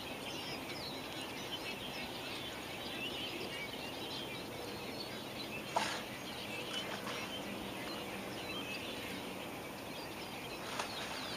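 Many small birds chirping at once, a dense chorus of short high chirps. A sharp click cuts in about six seconds in, and a smaller one near the end.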